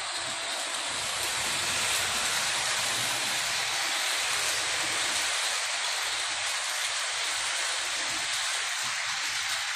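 H0 model train running on the layout's track: a steady rushing hiss of the locomotive's and coaches' wheels rolling on the metal rails.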